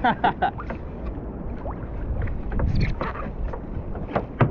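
Water sloshing against a fishing kayak's hull, with wind on the microphone and a few short knocks and clicks, the sharpest one near the end.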